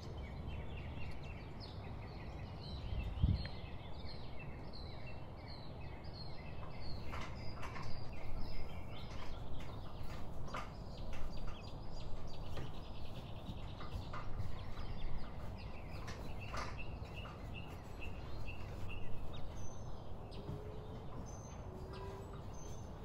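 Small birds chirping, with a quick run of evenly repeated high, falling chirps in the first few seconds, over a steady low background rumble. Scattered light clicks and knocks, and a low thump about three seconds in.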